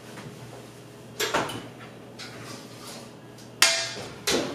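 Oven door being opened and a metal baking sheet pulled out off the oven rack: a clunk about a second in, then two louder metallic scrapes and clatters near the end, the first with a brief ring.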